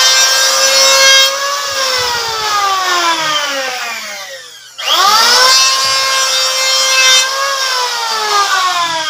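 Electric hand planer shaving a wooden plank: its motor runs at speed with a high whine, then winds down with a slowly falling pitch. It starts again about five seconds in and winds down once more near the end.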